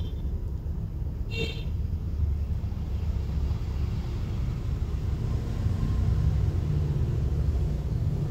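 Steady low rumble, like background traffic, with two brief high ringing tones in the first second and a half.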